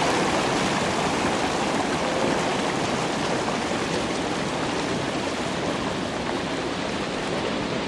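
A mountain mudflow of liquid red mud and stones rushing down a stream channel: a steady, loud rush that eases a little toward the end.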